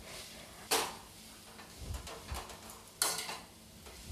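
Perforated steel skimmer ladle stirring and scraping potato-and-pea stuffing around a black kadhai as it is roasted, with two sharper scrapes, about a second in and near the end.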